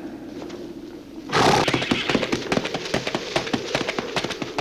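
A horse whinnies about a second in, then its hooves beat rapidly at a gallop on the film's soundtrack.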